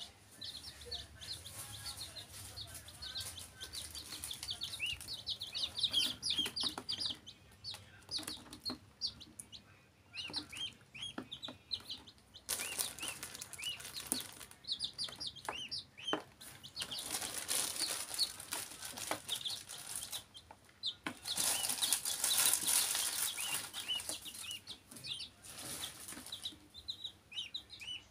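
Baby chicks and a duckling peeping over and over, short high chirps several a second, with a few stretches of loud scratchy rustling among the peeps.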